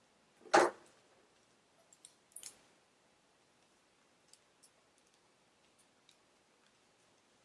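Hair-styling tools being handled: a sharp clack about half a second in, a second softer clack about two seconds later, then a few faint light clicks.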